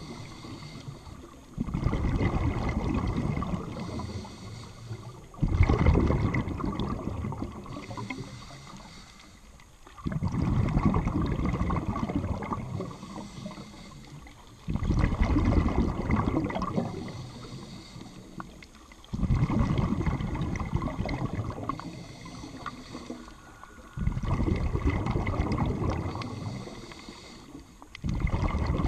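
Scuba regulator exhaust bubbles heard underwater: a gurgling rush of exhaled bubbles about every four to five seconds, seven times, each starting suddenly and fading out, with quieter pauses for the inhale between.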